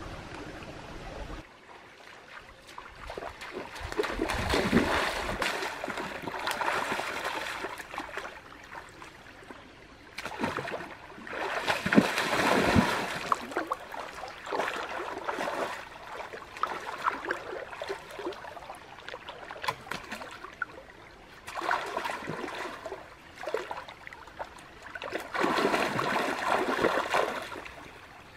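Shallow stream water splashing and sloshing as a person wades and gropes with her hands underwater for fish, over the stream's steady flow. The splashing comes and goes in several louder spells.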